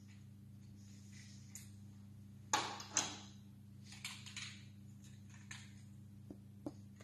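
Two sharp knocks about half a second apart, followed by fainter clattering and two small clicks near the end, over a steady low hum.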